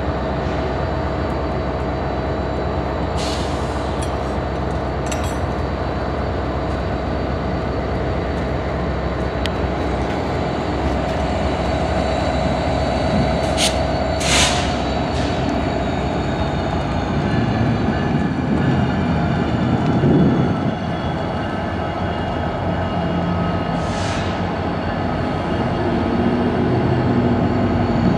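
Diesel locomotive engines running with a steady drone, broken by a few short, sharp, high-pitched squeals and clanks of steel on steel. About two-thirds of the way through, the engine note rises and falls as a locomotive throttles up.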